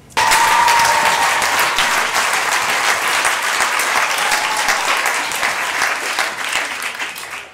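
Theatre audience applauding. The clapping starts suddenly at full strength and dies away near the end.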